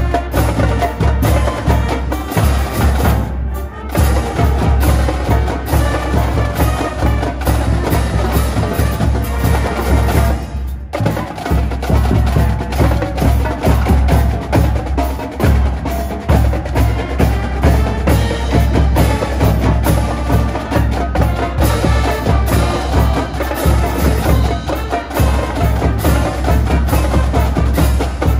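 High school pep band playing: flutes and brass over a drumline of snare drums, cymbals, bass drum and drum kit. The band stops short for a moment twice, about 3.5 and 11 seconds in.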